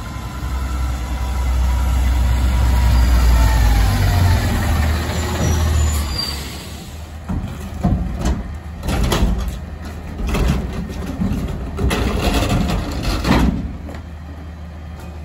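CNG Peterbilt 520 garbage truck drives up and slows, its engine rumbling loudly with a thin whine that falls in pitch. From about seven seconds in, a run of sharp metal clanks and bangs comes as a steel commercial dumpster is wheeled over to the truck's rear loader.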